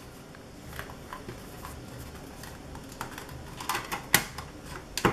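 Fingers working at the bottom panel of a fanless mini PC's case to pry it open by hand: light scraping and small plastic-and-metal clicks, with a few sharper clicks near the end as the panel works loose.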